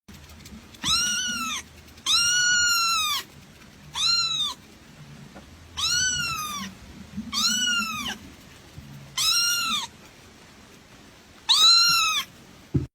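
Kitten meowing: seven high-pitched meows, each rising then falling in pitch, one every second or two.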